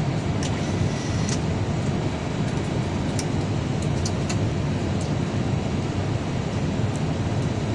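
Steady low hum and rumble of a parked airliner, heard from inside the cabin, with a few faint clicks.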